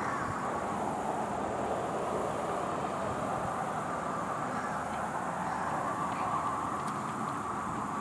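Distant jet airliner at cruising altitude: a steady far-off rushing rumble that slowly swells and eases.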